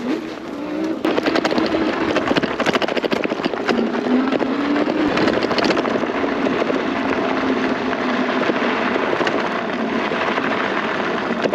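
Electric mini bike riding down a dirt trail: the motor's whine wavers up and down with speed over a steady crackle of knobby tyres on dirt and gravel.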